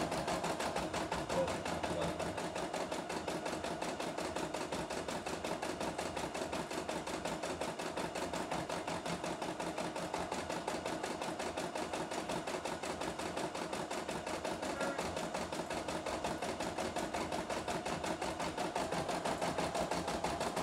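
CNY E960 computerized embroidery machine stitching out a design, its needle running at a rapid, even stitch rhythm without pause.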